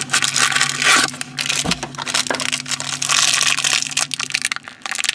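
Crinkling and tearing of toy blind-bag packaging as it is handled and opened, a rapid irregular crackle.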